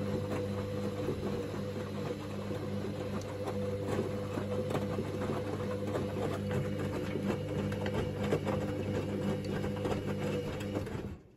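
Hoover DynamicNext washing machine turning its drum during the main wash: a steady motor hum with a busy clatter of the tumbling load, stopping abruptly near the end as the drum pauses between turns.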